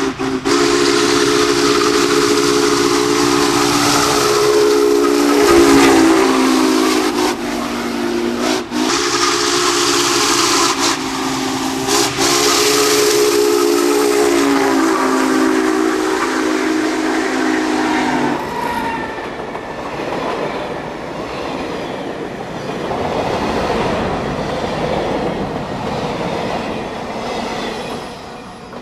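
Union Pacific Big Boy 4014's chime steam whistle blowing two long blasts as the 4-8-8-4 steam locomotive approaches and passes, its chord sliding down in pitch as it goes by. After that the whistle stops and the train's cars roll past with a steady rushing rail noise that slowly fades.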